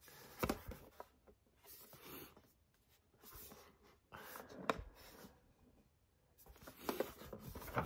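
Faint handling noises from a metal puzzle tin being turned over in the hands: scattered light taps, clicks and scrapes separated by quiet gaps, growing busier near the end.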